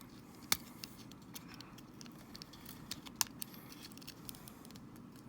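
Light, scattered clicks and taps of small plastic parts as a game controller's opened casing and ribbon-cable connector latch are worked at by hand, with two sharper clicks about half a second in and just after three seconds.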